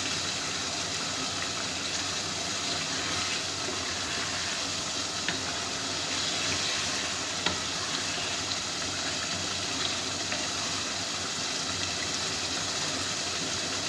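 Steady hiss of pots cooking on a gas stove while chicken pieces are stirred with a wooden spoon, with a few faint taps of the spoon against the pot.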